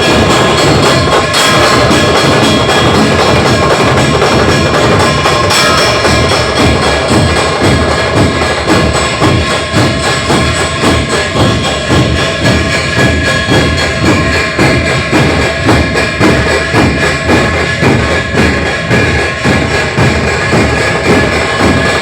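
A Maharashtrian village percussion troupe (tafa) playing a loud, steady rhythm of drums with jingling, ringing cymbals. The beat stands out more clearly from about six seconds in.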